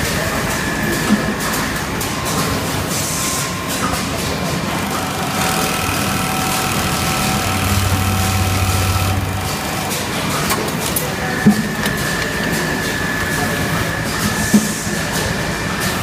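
MAICA UAM01 automatic pocket-setting sewing machine running through its pocket-attaching cycle: steady mechanical running with motor whines that come and go. A low hum swells for about two seconds midway, and there are three sharp clicks.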